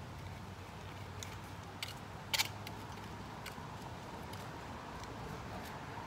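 Small hand rake scratching and loosening the surface soil in a bird bath basin, with scattered light clicks of the tines and one sharper click a little over two seconds in.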